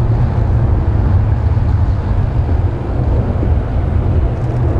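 Pilatus PC-9/A single-turboprop trainers flying overhead in formation: a steady, loud, low engine rumble.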